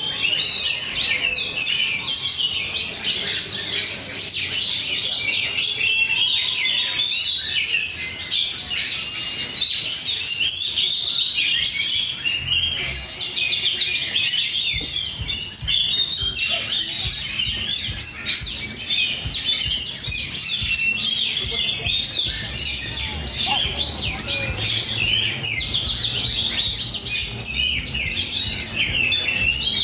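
Many caged songbirds singing at once, a dense, continuous high twittering and trilling of overlapping chirps with no pause, with a faint low hum underneath from about the middle on.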